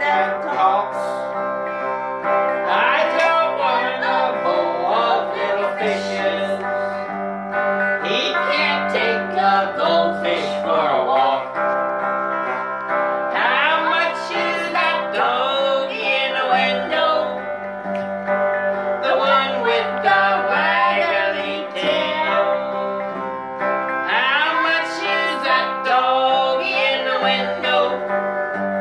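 Electric guitar played with voices singing along to it, a sung melody over the chords and a moving bass line.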